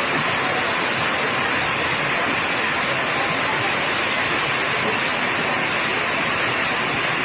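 Steady, even rushing noise that holds one level throughout.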